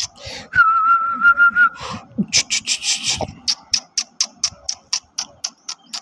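A person whistles a single steady, slightly wavering note at the dog for about a second. Then comes a short hiss, followed by a run of sharp clicks about three a second.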